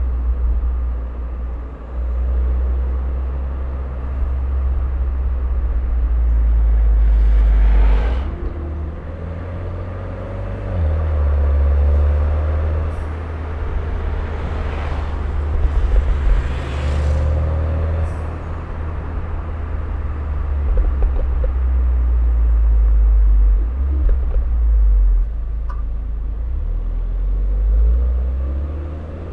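Turbocharged Mini Cooper engine and exhaust under way, the low drone swelling under acceleration and dropping off when the throttle closes, about eight seconds in and again later. A few short, sharp exhaust pops and a turbo whoosh are heard on the lift-offs.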